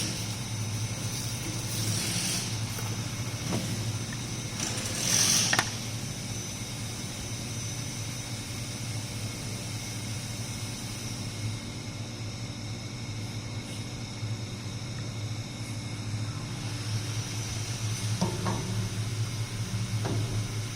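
A steady low mechanical hum, with a brief rushing noise about five seconds in and a couple of light knocks near the end.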